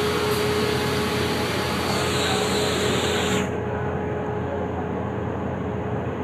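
Steady roaring hum of a glassblowing workshop: the glass furnace's burner and electric fans running, with a faint steady tone underneath. About three and a half seconds in, the hiss suddenly loses its high end and the sound turns duller.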